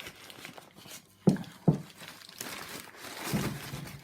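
Crinkling and rustling of something being handled, with two sharp knocks close together a little over a second in.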